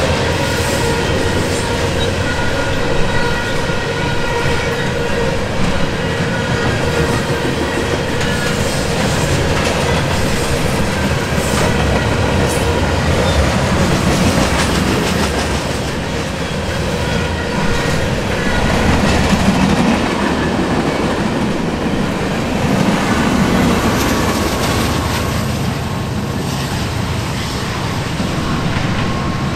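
Freight train of loaded steel coil cars rolling past at close range, its wheels clacking over the rail joints, with a thin steady squeal running over the rumble.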